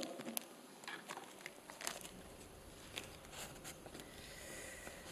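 Faint rustling of paper sheets and a few light taps and knocks at a speaker's lectern, over a quiet room.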